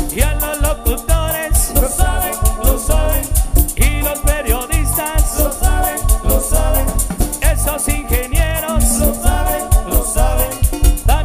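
Upbeat Latin dance music with a strong steady beat and a singing voice.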